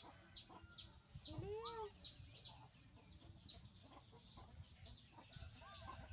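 Chicks peeping in a steady series of short, high, falling chirps, about two to three a second, with a few lower rising-and-falling calls among them.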